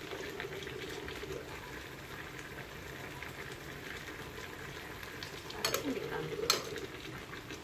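A pot of nikujaga bubbling as it simmers in its soy-sugar-mirin broth, a steady hiss. Near the end come two sharp knocks less than a second apart, the second louder, like a utensil striking the pot.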